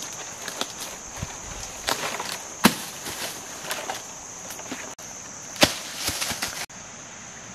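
Green coconuts falling from a palm and landing on dry leaves: two sharp thuds, about two and a half seconds in and again near six seconds, each followed by crackling and rustling of the leaves. A steady high insect buzz runs underneath.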